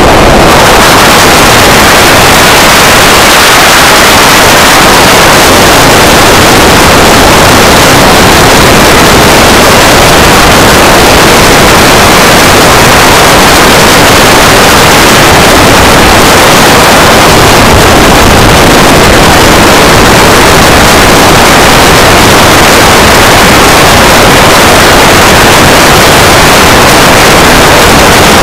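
Onboard camera of an S800 Sky Shadow FPV flying wing in flight: a loud, even rush of wind and propeller noise over the microphone, clipped at full level and unchanging throughout.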